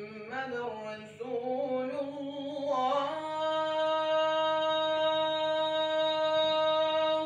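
A man's voice reciting the ezan, the Islamic call to prayer, into a handheld microphone: a winding, ornamented phrase that settles about three seconds in onto one long high note, held steady for about four seconds before breaking off.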